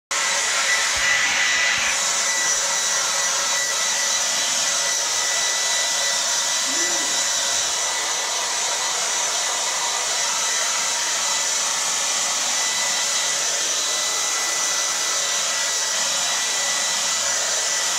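Hand-held hair dryer running steadily: an even rush of blowing air with a faint high motor whine through it.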